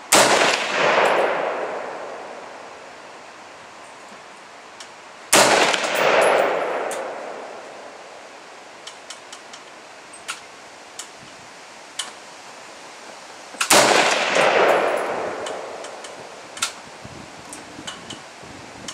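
Stag Arms Model 4 AR-15 firing three single aimed shots of 5.56/.223 ammunition, about five and then eight seconds apart. Each crack is followed by a long echo that dies away over a couple of seconds. Faint clicks come between the shots.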